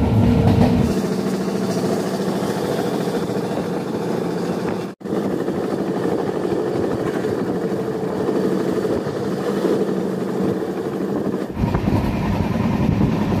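Passenger train running, the steady rumble and rattle of the moving coach heard from inside by the window. The sound cuts out for an instant about five seconds in.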